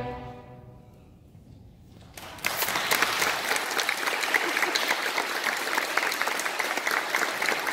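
The last chord of a string orchestra dies away within the first second, a short hush follows, then audience applause breaks out about two seconds in and goes on steadily.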